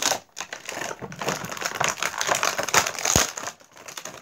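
Plastic toy packaging crinkling and crackling with rapid small clicks as small toy pieces are worked out of it, with one sharp knock a little after three seconds in.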